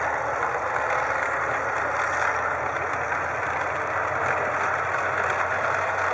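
Tracked light tank driving across snow, its engine running steadily.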